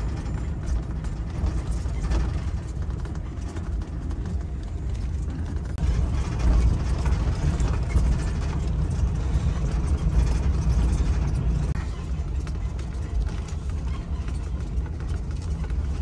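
Camper van driving slowly on a gravel road, heard from inside the cab: a steady low engine and road rumble with tyre noise and small clicks and rattles, a little louder from about six seconds in.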